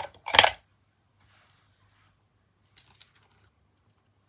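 Light handling of paper and a glue bottle during paper crafting: a brief rustle right at the start, then quiet apart from a few faint clicks about three seconds in.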